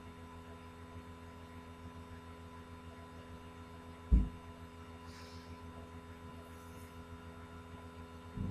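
Steady low electrical hum, with a single dull thump about four seconds in.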